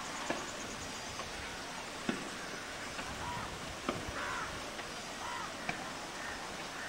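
Outdoor ambience with a steady hiss, a sharp click about every two seconds, and a few faint distant calls near the middle.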